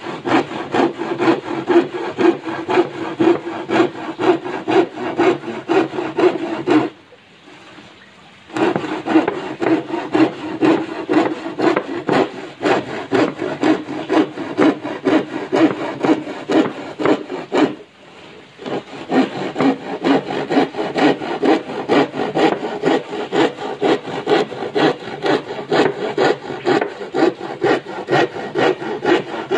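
Handsaw cutting lengthwise along a thin wooden board: quick, even back-and-forth rasping strokes, pausing briefly twice, about seven seconds in and again about eighteen seconds in.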